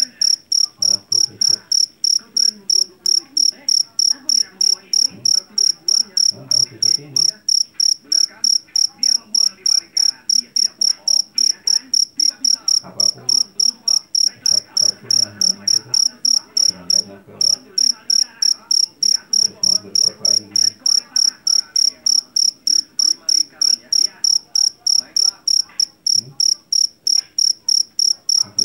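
A male jangkrik jeliteng, the Javanese black field cricket, chirping loudly and steadily in a high pitch, about three to four chirps a second, with one brief pause about two thirds of the way through.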